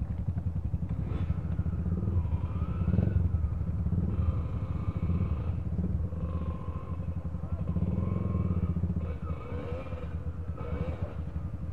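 Several dirt bike engines running at idle close by, a steady low rumble, with the pitch rising and falling now and then as throttles are blipped.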